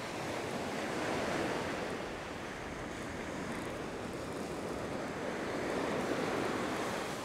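Small ocean waves breaking and washing up the sand, swelling about a second in and again near the end.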